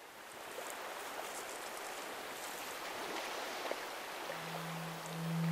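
Gentle water lapping along a stony shore, a steady soft wash of sound. About four seconds in, a low steady tone fades in and grows louder.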